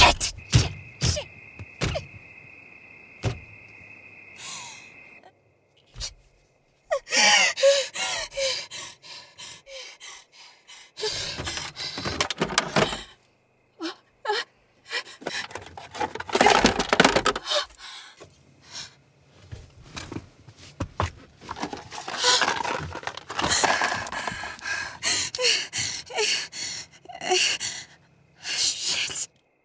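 A woman gasping and panting in panic, in repeated ragged bursts, with scattered thunks and clicks of things being handled. For about the first five seconds a steady high tone sounds, then stops.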